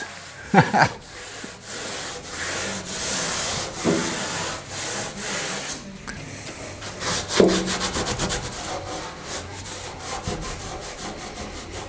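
Cloth rag rubbed back and forth over a ribbed steel truck running board, wiping on boiled linseed oil, with a steady scrubbing swish. About halfway through, the strokes turn quicker and shorter.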